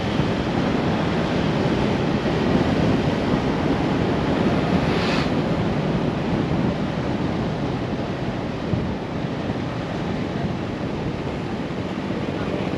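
Onboard running noise of a Mitsubishi Nativa diesel 4x4 driving a dirt rally stage: a steady rumble of engine and tyres, with wind on the microphone. A short hiss about five seconds in.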